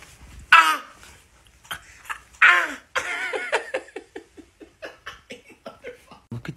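A person laughing: two high-pitched bursts, then a long run of short, quick laughs that fade out.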